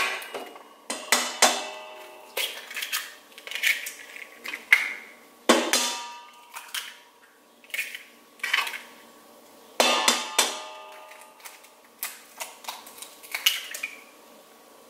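Eggs being cracked one after another on the rim of a stand mixer's bowl: about ten sharp taps spread a second or so apart, each leaving a short ring from the bowl.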